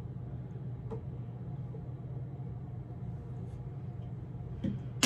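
Steady low hum of a room heater, with a few faint taps as a plastic sauce bottle is handled and set down, and one sharp click at the very end.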